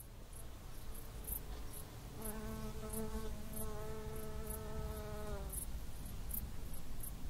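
Insect buzzing: a pitched hum comes in about two seconds in and stops after about three seconds, over a steady low rumble. Faint high chirps repeat about twice a second throughout.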